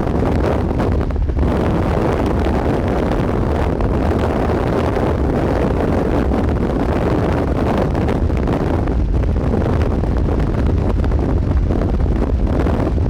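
Strong wind buffeting the microphone: a loud, steady, deep rumble of wind noise with no distinct events.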